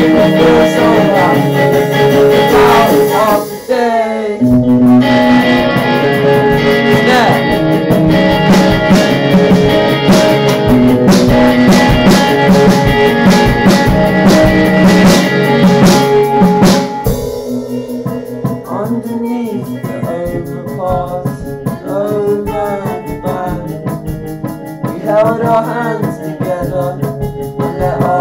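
Live song on a strummed guitar, with a voice singing wordlessly over it. A brief dip about four seconds in, then busy, loud strumming, and about two-thirds of the way through it drops back to a quieter passage where the voice's gliding melody stands out.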